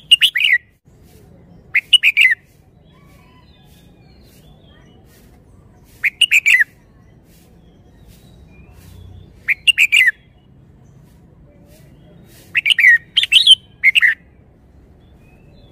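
Red-whiskered bulbul singing: five short phrases of quick falling notes a few seconds apart, the last phrase the longest.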